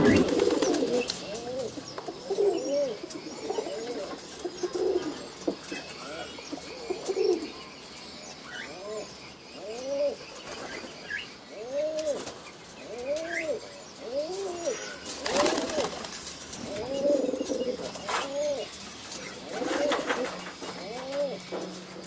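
Domestic pigeons cooing over and over, each coo a short call that rises and falls in pitch. A couple of brief sharper sounds come about two thirds of the way through and again near the end.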